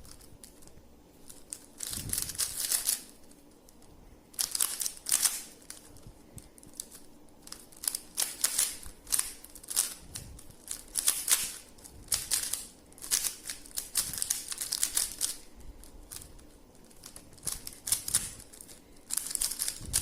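3x3 Rubik's cube being turned fast during a speedsolve: rapid plastic clicking and clattering of the layers, in bursts of a second or two with short pauses between them.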